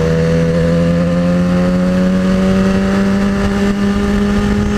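Inline-four sport motorcycle engine running at a steady cruise while riding, its pitch climbing slowly as the revs rise, with wind rumbling on the microphone.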